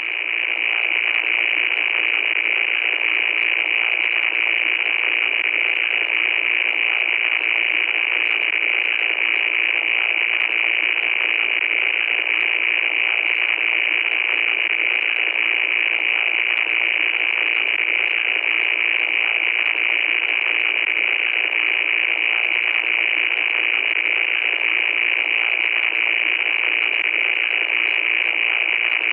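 Loud, steady static noise: an even, thin-sounding hiss pitched high, with faint crackling ticks through it.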